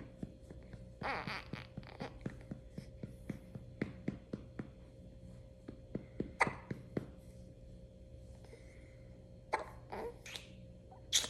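Light, steady pats on a newborn's back, about three a second, to bring up a burp; they thin out after about six seconds. Between the pats come the baby's short grunts, sneeze-like and hiccup-like noises and breathy sounds, the sharpest just before the end.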